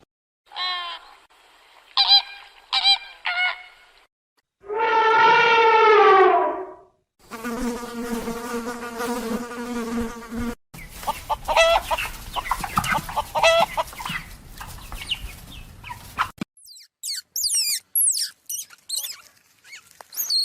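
A string of different animal sounds cut one after another: short chirping calls, a long loud call falling in pitch, a steady insect buzz lasting about three seconds, a run of fowl calls, then high twittering bird calls near the end.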